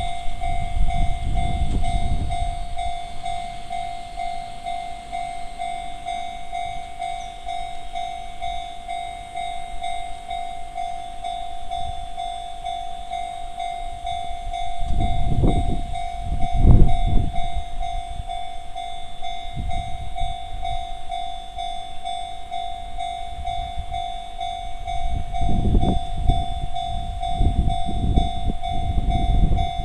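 Japanese railway level-crossing alarm ringing continuously: an electronic bell of the Chichibu-Railway type, a steady pulsing tone. Low rumbles rise over it in the middle and again toward the end.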